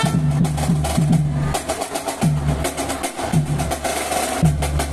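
Live brass-and-drum marching band playing: trombones and sousaphone holding low notes over steady snare and bass drum strokes.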